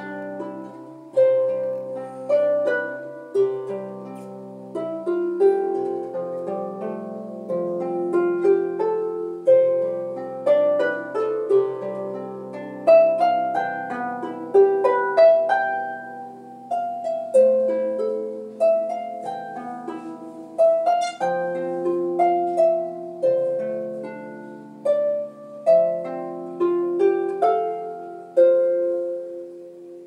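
Lever harp played solo: a melody of plucked notes over low bass notes, each note ringing on and fading.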